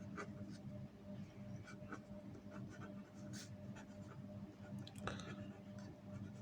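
Pen writing on paper: faint, irregular scratching strokes over a steady low hum.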